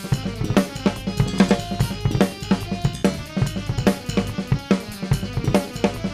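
Drum kit played in a steady, fast groove: bass drum and snare hits with cymbals ringing over them.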